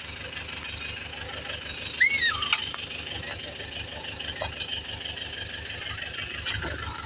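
A tractor engine running steadily with a pulsing low rumble. About two seconds in, a brief whistle-like chirp rises and then falls in pitch.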